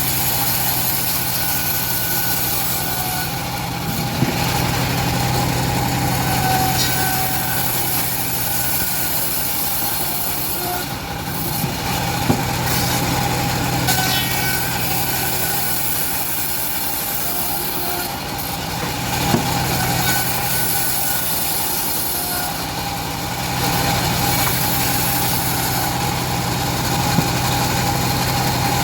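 Homemade bandsaw mill running steadily while its blade cuts through old teak, with a high hissing cutting noise that fades and returns every several seconds between passes. A few sharp knocks sound over the steady machine drone.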